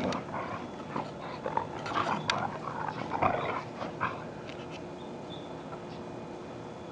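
Dogs playing together, making a burst of irregular dog noises and scuffles for about four seconds before it dies away.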